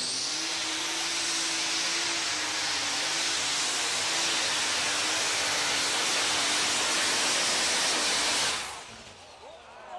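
Turbocharged diesel engine of a super stock pulling tractor running at full power under load as it hauls the sled: a dense roar with a loud high turbo hiss over a wavering low engine note. The sound stops abruptly about eight and a half seconds in.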